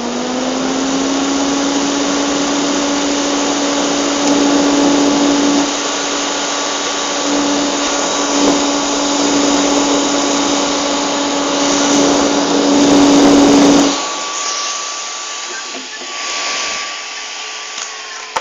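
Matsuviva electric cooling fan running at full speed: a steady motor hum under a loud rush of air, powerful like a small exhaust fan. About fourteen seconds in, the hum cuts out suddenly and the air noise dies away.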